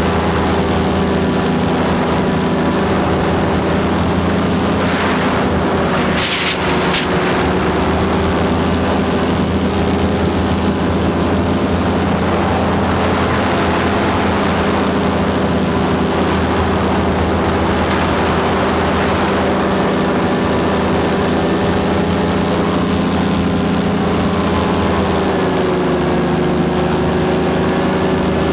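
Paramotor engine and propeller running steadily at a constant pitch. The pitch dips briefly near the end as the throttle eases, and a short rush of air hiss comes about six seconds in.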